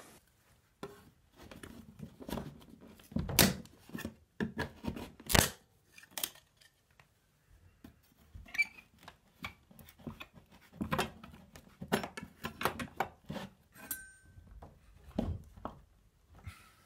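Steel putty knife being worked in between a painted wood door casing and the jamb, scraping, with creaks and sharp cracks as the top casing is pried loose. It is an irregular run of short scrapes and cracks; the loudest come about three and a half seconds in, at five seconds, and twice near the end.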